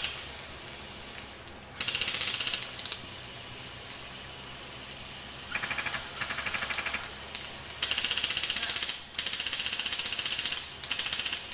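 Airsoft guns firing full-auto in four bursts of one to two seconds each, a fast, even ticking rattle.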